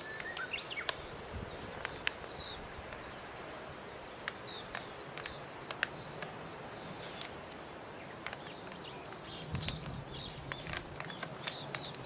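Background ambience with faint bird-like chirps near the start and again near the end, and scattered sharp clicks and taps.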